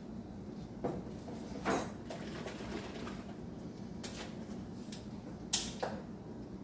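Kitchen cookware and utensils being handled: about five sharp clinks and knocks, the loudest about five and a half seconds in, over a steady low hum.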